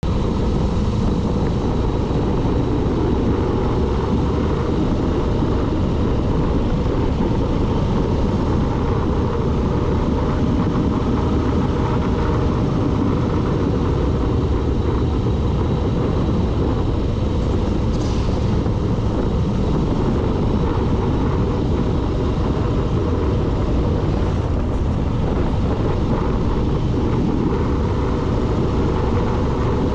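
Steady, loud driving noise from a vehicle on the move, engine and road noise blended, with one short sharp sound about two-thirds of the way through.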